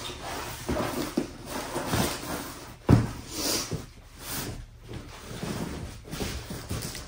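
Gift bag and packing paper rustling as they are handled and filled, with soft knocks of objects on the tabletop; a louder thump about three seconds in.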